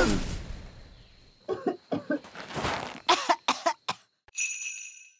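Cartoon fairy coughing several times in short, hoarse bursts, choking on a cloud of flour, after a rushing avalanche of flour fades out. A brief high ringing tone sounds near the end.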